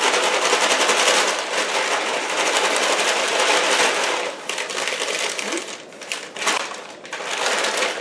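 Popped popcorn rattling inside a brown paper lunch bag that is shaken hard to mix in salt and melted butter, with the paper crinkling. After about four seconds the shaking stops and only lighter rustles of the paper bag remain.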